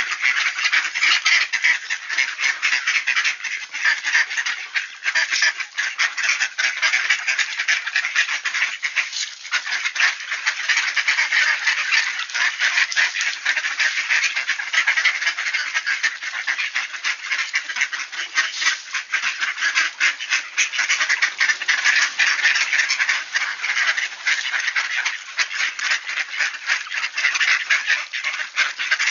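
A crowd of mallard ducks quacking continuously, many birds calling over one another with no break.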